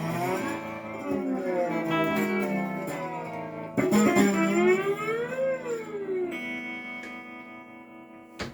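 Electric guitar played through a Fender Tonemaster Twin Reverb amp: sustained chords that swoop slowly up and down in pitch, with a fresh strike about four seconds in, then ringing out and fading away near the end.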